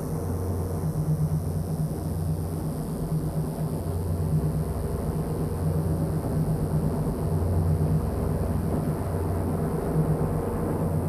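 Live experimental electronic music: a low droning hum that swells and fades every couple of seconds over a steady hiss.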